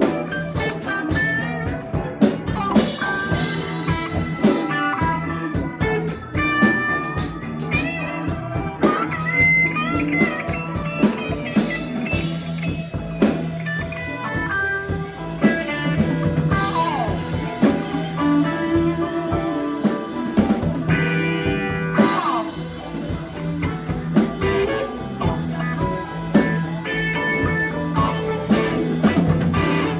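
Live band playing a blues-rock number: lead guitar with sliding string bends over a drum kit.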